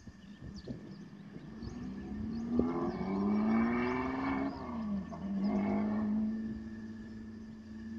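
Car engine accelerating hard, its pitch climbing steadily. The pitch dips briefly about five seconds in, then climbs again.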